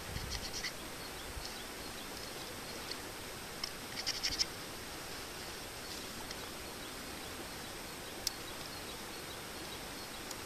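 Pocket knife working a half-dead ash stick: short clicking cuts into the wood in the first second, a quick cluster of clicks about four seconds in, and a single sharp click near the end, over a steady hiss.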